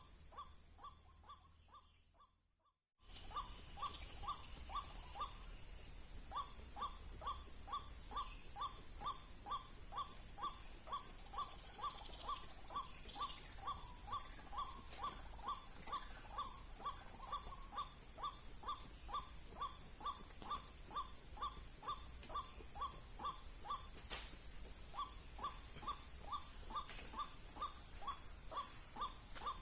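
Ruak-ruak (white-breasted waterhen) calling: a long, even run of short harsh notes, about three a second, over a steady high insect drone. It fades out, breaks off, and cuts back in abruptly about three seconds in.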